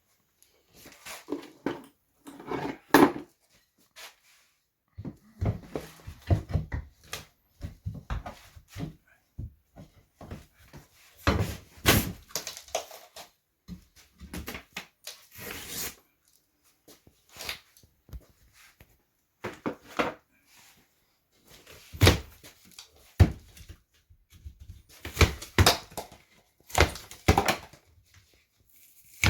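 Irregular thuds, knocks and crunches of hand construction work on a wall, building material being struck, broken and handled.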